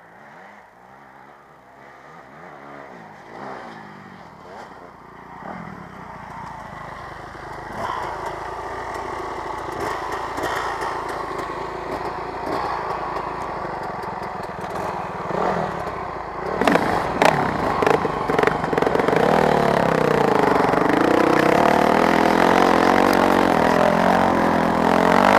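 Yamaha WR250F four-stroke single-cylinder dirt bike engine running and revving, its pitch rising and falling with the throttle and growing steadily louder, with a few sharp clattering knocks about two-thirds through.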